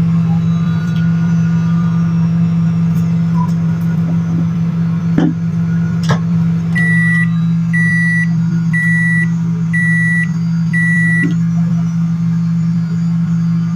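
Microwave oven running with a steady low hum, two sharp clicks about five and six seconds in, then five evenly spaced high-pitched beeps about a second apart from the microwave.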